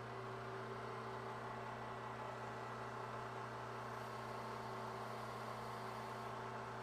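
Bridgeport milling machine running with a steady hum as its cutter plunges into the plastic hub of a Scotch-Brite deburring wheel, opening the 1-inch bore out toward 1.25 inches.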